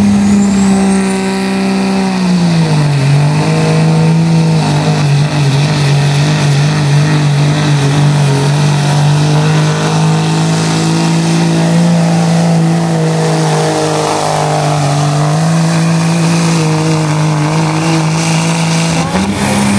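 Diesel pickup truck engine at full throttle under heavy load, pulling a weight-transfer sled. Its steady note sags about two and a half seconds in as the sled bears down and stays lower, then climbs back up near the end. A high whistle rises over the first two seconds.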